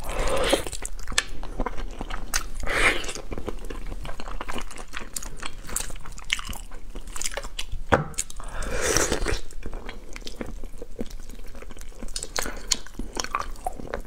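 Close-up eating sounds of braised pig's trotters: wet biting and chewing through skin and meat, with many small sharp clicks throughout.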